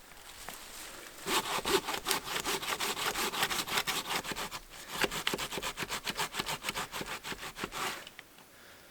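Hand saw cutting the 45-degree felling notch into a standing balsam fir trunk, in a run of quick back-and-forth strokes through the wood. The sawing starts about a second in, breaks off briefly midway and stops near the end.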